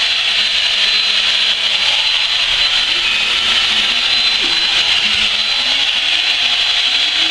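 Electric drill running steadily with no load, a continuous motor noise with a thin high whine.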